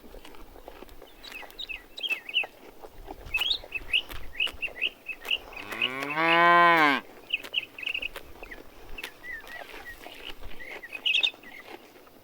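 A cow lowing once, a single drawn-out moo that rises and then falls in pitch, about halfway through. Small birds chirp around it throughout.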